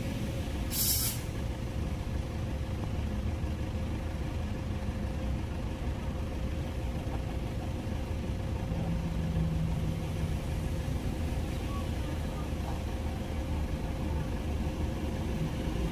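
Heavy diesel trucks idling with a steady low rumble, and a short air-brake hiss about a second in.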